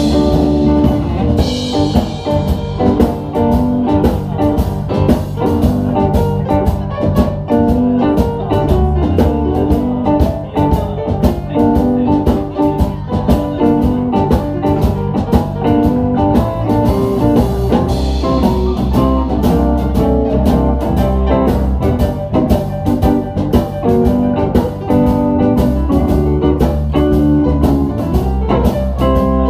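Blues band playing an instrumental passage with no vocals: guitar over bass and drums, with a steady beat.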